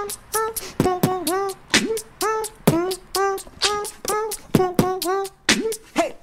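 Background music: a steady beat of sharp percussive hits with short, pitched vocal-like notes between them.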